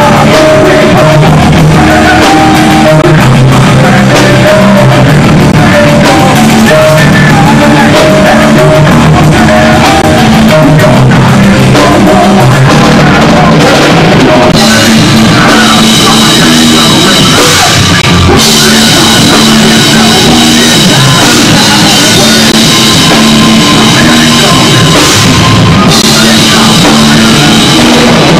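Rock band playing loud live: drum kit, electric guitars and a singer.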